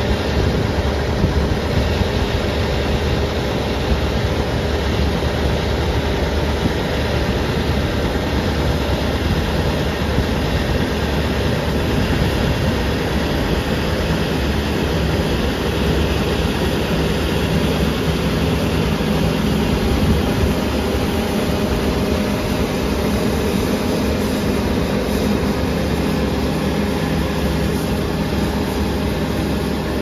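Heavy diesel harvest machinery running steadily in a wheat field: a constant engine drone with a steady low hum under even mechanical noise, unchanging throughout.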